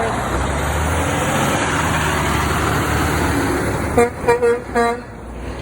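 A Kenworth semi-truck going past with a steady rush of engine and tyre noise, then its horn giving four short toots about four seconds in.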